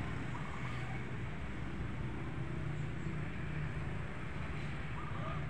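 Steady hum of distant road traffic, with two brief high tones, one about half a second in and one near the end.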